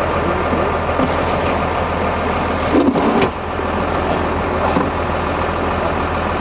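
Farm tractor's diesel engine idling steadily, waiting to lift an engine on its pallet forks, with a brief louder noise about three seconds in.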